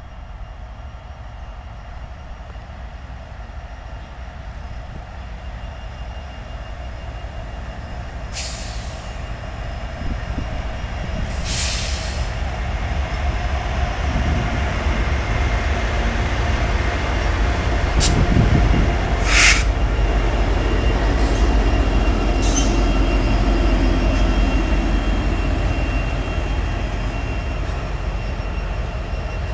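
Norfolk Southern diesel freight train, led by a GE Dash 9-40CW and an EMD SD50 locomotive, approaching and passing close by while picking up speed, its engines and wheels growing louder to a peak in the middle as the locomotives come level. A few brief sharp high-pitched noises cut through the rumble partway through.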